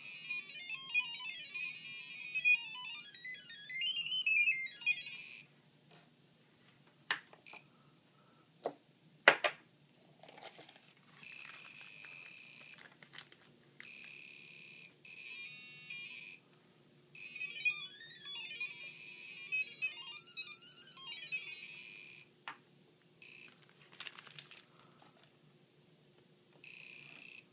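DIY Geiger counter clicking through its piezo speaker at a high count rate, a dense, fast crackling chatter that comes and goes in several stretches as the SBM-20 probe is held to radioactive samples. The count rate is high near the samples. Scattered single clicks fall in the quieter gaps between.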